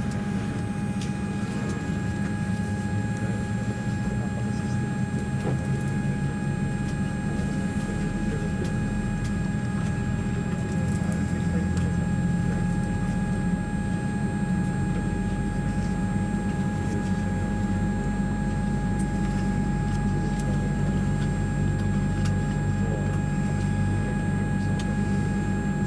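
Cabin noise of a Boeing 787-8 airliner moving slowly on the ground: a steady low hum of the running engines and air systems, with a faint steady whine over it. The low hum grows a little fuller about eight seconds in.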